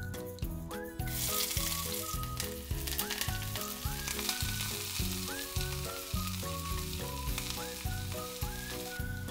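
Sliced onion and chives sizzling in hot mustard oil in a stainless steel pressure cooker. The sizzle starts about a second in and stops shortly before the end, under loud background music with a whistled tune.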